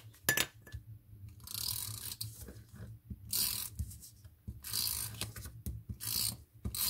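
Handheld double-sided tape runner drawn across the back of a piece of white card in about four short strokes, the first about a second and a half in, with a few clicks near the start.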